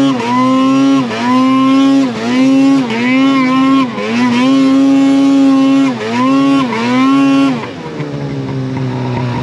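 Two-stroke mountain snowmobile engine revving under throttle, the pitch dipping and climbing again every second or two as the throttle is let off and reapplied, then settling to a lower, steadier running pitch near the end.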